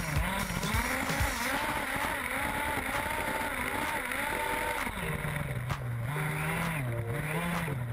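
Radio-controlled off-road buggy's motor heard from on board, its pitch rising and falling repeatedly as the throttle is worked across the sand, with a hiss of wind and sand noise underneath.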